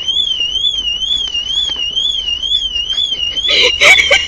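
Nissan car alarm sounding a continuous warbling tone that sweeps rapidly up and down, which is blamed on the heavy rain setting it off. A short burst of noise comes near the end.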